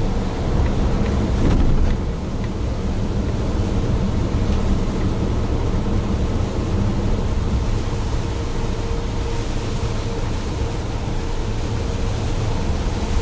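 Mitsubishi Fuso heavy truck's diesel engine running steadily at cruising speed, with a constant drone and heavy tyre and road rumble from driving on a wet expressway. A brief louder rumble comes about a second in.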